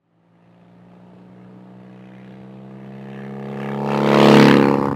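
Cafe racer motorcycle engine running at a steady pitch, growing louder as the bike approaches and peaking near the end.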